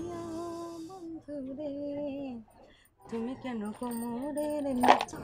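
A woman singing a song unaccompanied, in two phrases with a short break about halfway through.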